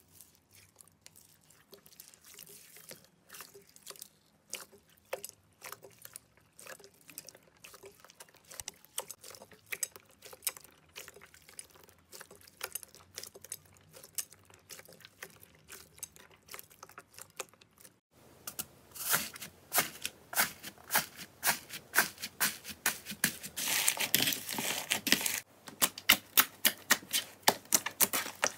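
Hands squeezing and pressing slime, making a fast run of small wet clicks and crackles. It is clear purple slime full of small beads at first. About two-thirds of the way in it changes to glossy brown slime with louder, sharper pops.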